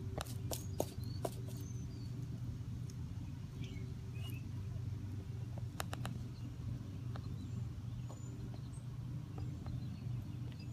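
Savannah monitor crunching a hornworm: a few sharp clicks of its jaws in the first second or so and again about six seconds in. Under it runs a steady low hum, with birds chirping faintly.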